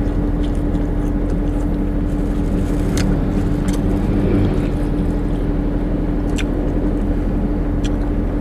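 Steady hum of a car idling, heard from inside the cabin, with one constant tone over a low rumble. A few short clicks and rustles from a plastic bag of fried tofu and from eating.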